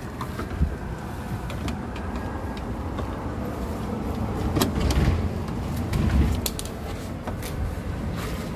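Scattered sharp clicks and knocks from hands working on the door's lock mechanism and wiring in an opened car door, over a steady low rumble. The loudest knocks come about four and a half to five seconds in and again around six seconds.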